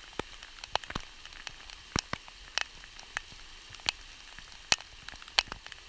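Heavy rain falling in a steady hiss, with individual drops striking close by as sharp, irregular taps.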